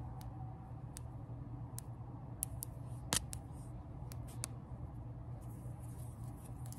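Fingertips and long painted nails tapping and brushing against the phone camera: scattered sharp clicks at irregular intervals, the loudest a little over three seconds in, over a steady low hum.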